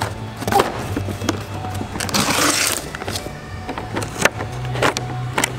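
Cardboard speaker box being opened and handled: knocks and clicks of the flaps and contents, with a brief scraping rustle about two seconds in.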